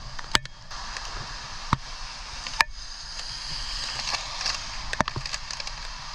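Steady rain hiss that rises and falls, with four sharp clicks or knocks scattered through it.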